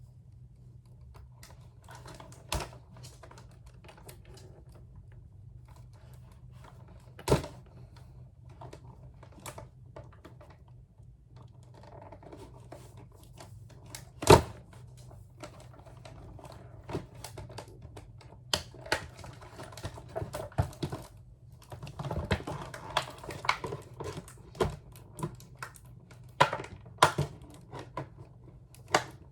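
A doll being freed from its retail box: irregular sharp clicks and snaps of plastic and cardboard with light rustling. The handling grows busier in the last third.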